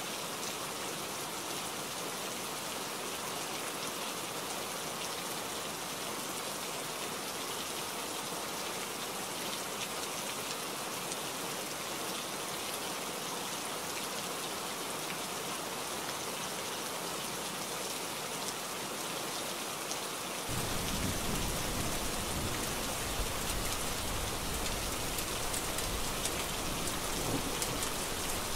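Heavy rain falling steadily, an even hiss of drops on hard surfaces. About two-thirds of the way in, a deep low rumble of thunder sets in abruptly and the rain grows louder.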